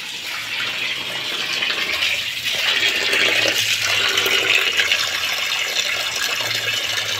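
Tap water pouring into a steel bowl of raw fish pieces and splashing as hands rub and rinse them, getting louder about two seconds in.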